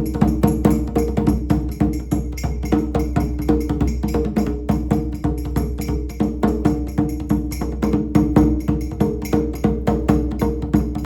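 Djembe played by hand in a fast, continuous stream of strokes.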